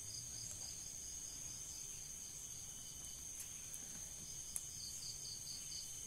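Insects chirping faintly: a steady high trill with repeated trains of quick pulsed chirps. One sharp click sounds about four and a half seconds in.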